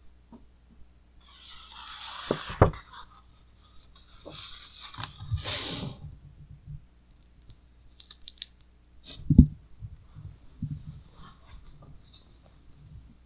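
Thick pages of an oversized Taschen hardcover book being turned, with two paper swishes and a thump as a page drops. The heavy cover is then shut with a loud thump, followed by light rubbing and tapping as the book is handled.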